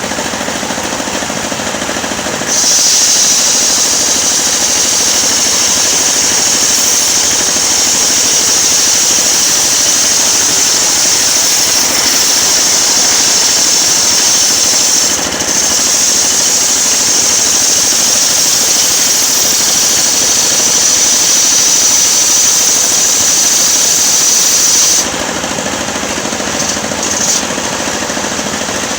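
Engine-driven circular sawmill blade ripping lengthwise through a coconut-wood log: a loud, high cutting whine over the running engine sets in about two and a half seconds in, falters briefly midway, and cuts off near the end, leaving the engine and free-spinning blade running.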